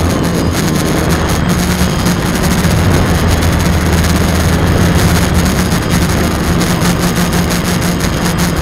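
DJI quadcopter's electric motors and propellers running steadily in flight, heard close up through a keychain camera mounted on the drone: a loud, even low buzz under a dense rushing noise.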